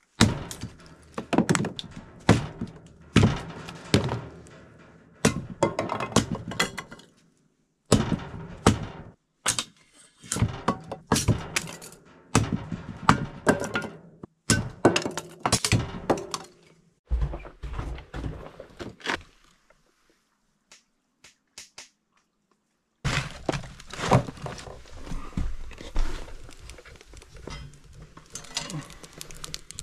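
Repeated thunks, knocks and clatter of gear being handled and set down, in several busy bursts with a quiet stretch a little past the middle.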